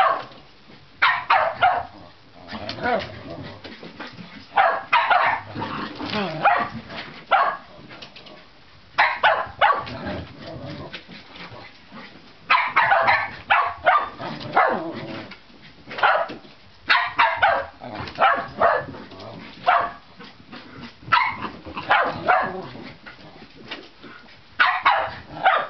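Shetland sheepdogs barking in clusters of quick, sharp barks every few seconds. This is play barking, meant to goad the other dog into giving chase.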